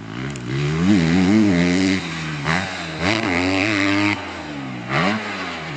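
Motorcycle engine revving, its pitch rising and falling several times as the throttle is blipped, loudest about a second in.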